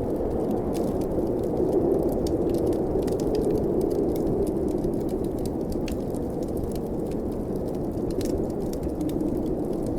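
Snowstorm wind blowing steadily as a low rush, swelling a little a few seconds in, with frequent small sharp crackles and pops of a wood fire.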